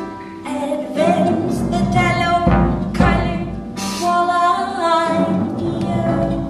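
Live band music: a woman sings over a concert harp, with violin, and loud drum strikes come every second or two.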